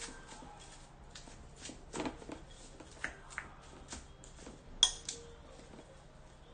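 Wooden spoon stirring rice in a large glass bowl: a run of soft scrapes and light taps of wood on glass, with a sharper knock about five seconds in.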